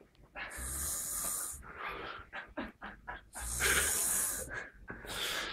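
Snoring: two long hissing breaths about three seconds apart, with rough, rattly sounds between them.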